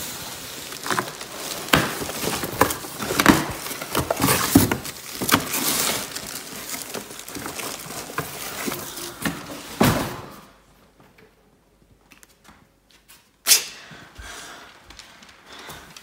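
Packaging rustling and crinkling with many small knocks and clicks as a mail-order plant is handled out of its wrapping. The noise stops about ten seconds in, and a single sharp knock comes a few seconds later.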